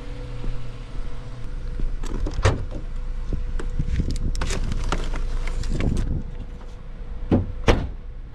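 Gear being stowed in a car trunk: a portable jump starter set down among tools with scattered knocks and clatter, then the trunk lid shut with two sharp thumps near the end.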